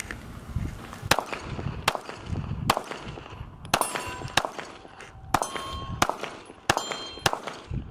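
A compensated Glock 43X pistol fired about nine times in a steady string, a shot every second or less, at steel plate targets. The hits on the steel ring out with a clear metallic ding, most plainly in the second half of the string.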